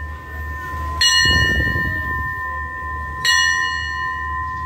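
Railway station bell struck twice, about two seconds apart, each stroke ringing on at a steady pitch, over a steady low rumble.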